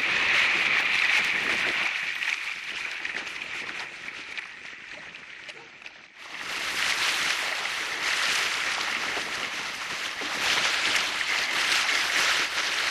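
Rush of water and spray from a kite-powered kayak's hull cutting fast through choppy sea. The sound dips briefly about six seconds in, then comes back louder and hissier.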